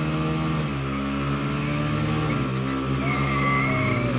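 Two Hero Splendor motorcycles' single-cylinder four-stroke engines revving hard under load, their pitch stepping up and down several times as the riders work the throttle, with the rear tyres spinning in loose dirt as the bikes strain against each other on a tow rope.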